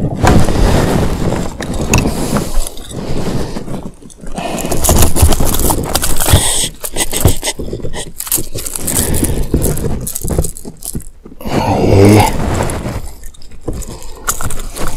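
Irregular rattling, scraping and clicking of metal pliers against a hard plastic lure and its hooks, with knocks on the boat deck, as the lure is worked free from a landed snook's mouth.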